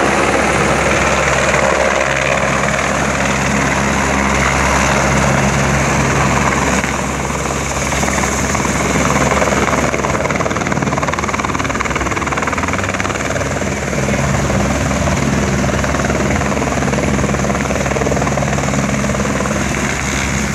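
Eurocopter AS350 B3 Esquilo helicopter coming in to land, its main rotor and single turboshaft engine running loud and steady, with a low rotor hum beneath the turbine noise.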